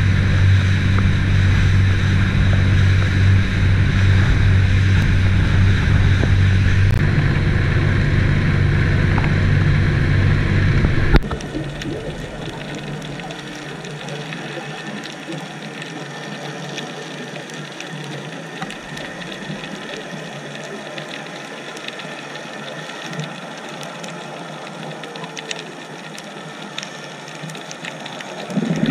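A motorboat's engine runs steadily at speed with water rushing past the hull. About eleven seconds in the sound changes abruptly to a much quieter underwater crackle of many small clicks.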